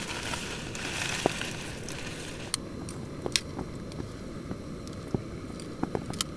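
Jetboil gas stove burner hissing steadily under a steaming pot, with scattered light clicks and taps as a utensil stirs pasta in the metal pot. The hiss is a little stronger in the first second or so.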